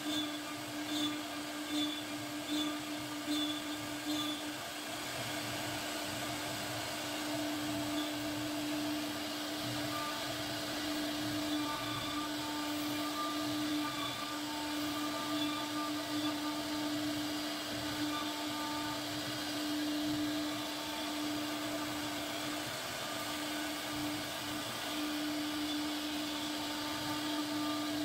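CNC router spindle running at a steady high speed with a constant whine while its bit carves a relief pattern into a wooden panel. A faint regular pulsing sits under it for the first few seconds.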